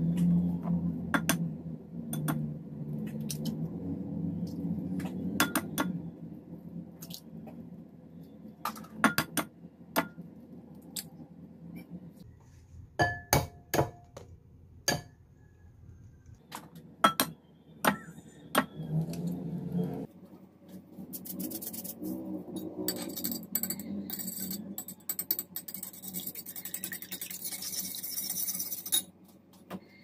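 Scattered clinks and taps of eggs being cracked into a ceramic bowl. About two-thirds of the way through, a fast, continuous clatter begins as a metal spoon beats the eggs against the bowl, stopping shortly before the end.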